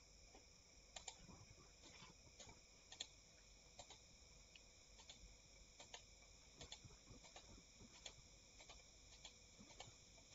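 Near silence with faint, irregular clicking, about one or two clicks a second: computer mouse clicks, over a low steady hiss.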